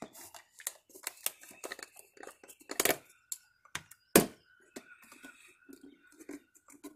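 Plastic Mobil 1 motor oil bottle being opened by hand: the screw cap twisted off and the seal under it worked loose, a run of crinkling and ticking with a couple of sharp snaps, the loudest a little after four seconds in.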